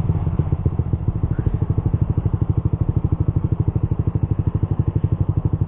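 Suzuki GSX-R150's single-cylinder four-stroke engine idling through an R9 Misano aftermarket racing exhaust: a steady, even train of exhaust pulses, about a dozen a second.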